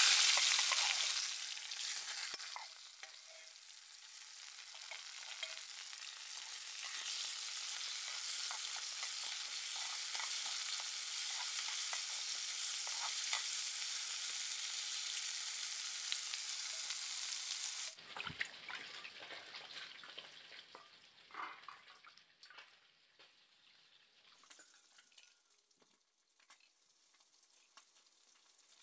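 Eel pieces sizzling in hot mustard oil in an aluminium kadai, loudest as they hit the oil, then frying on steadily while a wooden spatula stirs them. About 18 seconds in the sizzling cuts off suddenly, leaving faint scattered taps and scrapes of a knife trimming an onion and green chillies over a steel plate.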